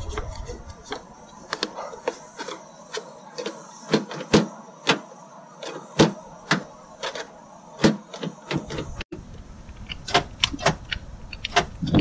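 Sharp plastic clicks and snaps, irregular and a second or two apart, from a 1999 Toyota Sienna's interior front door handle and its latch linkage being worked and pulled after refitting.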